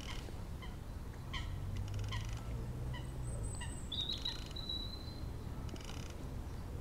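Small birds calling: short scattered chirps and quick trills, with one thin held whistle about four seconds in, over a faint low steady rumble.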